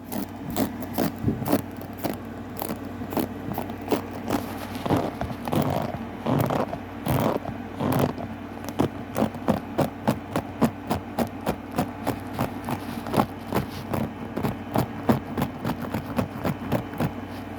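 A hair comb scraped in quick, repeated strokes, about two or three a second and uneven in loudness. This is the grooming sound that sets the cat gagging.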